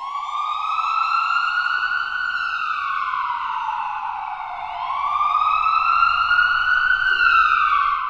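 Emergency vehicle siren wailing: a single tone glides slowly up and down, rising for about two seconds and falling for about two and a half, twice over.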